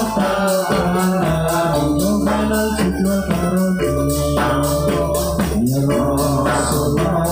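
Javanese angguk dance music: a sung melody over a steady low bass and a quick, regular percussion beat.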